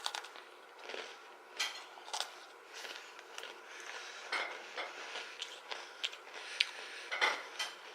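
Chewing an Oreo cookie close to the microphone: irregular small crunches and clicks, the loudest near the end.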